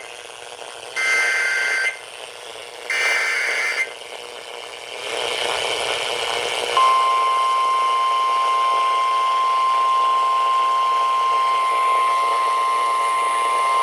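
NOAA Weather Radio alert start: two one-second bursts of warbling SAME header data tones, then from about seven seconds in the steady 1050 Hz warning alarm tone, which signals that a new warning, here a severe thunderstorm warning, is about to be read.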